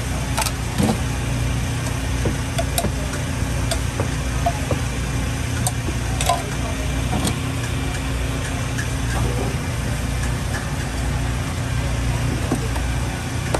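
Steady low engine-like hum, with scattered light clicks and taps of a metal spatula against a steel cooking surface.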